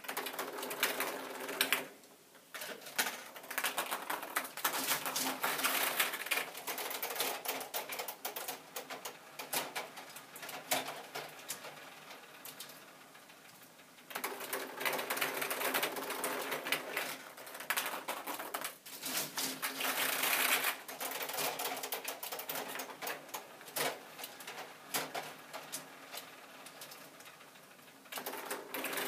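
Plastic K'Nex fruit machine mechanism running through its plays: dense, rapid clicking and clattering of the K'Nex parts and reels, with ping-pong balls rattling through as wins of four and eight balls are paid out. The clatter comes in two long spells with short lulls between, and starts up again near the end.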